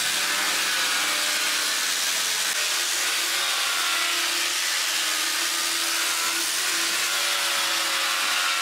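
Angle grinder with a sanding disc running steadily against a heavy hardwood plank, rough-sanding off the coarse saw-cut surface, a continuous motor whine with the hiss of the disc on the wood.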